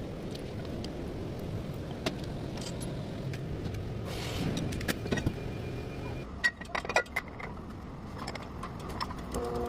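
A car's low steady rumble with scattered light metallic clinks and rattles, loudest in a cluster about seven seconds in.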